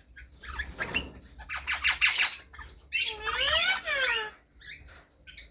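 Pet parrots squawking: short harsh squawks, then about three seconds in a louder, longer screech that sweeps up and down in pitch for about a second.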